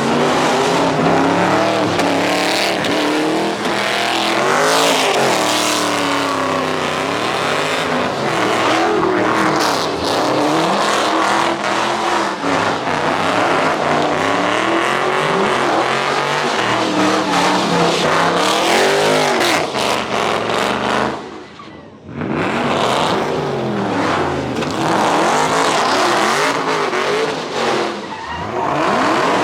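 Cars doing burnouts and donuts: engines revving up and down repeatedly over tyre squeal. The sound drops away briefly about three-quarters of the way through, then picks up again.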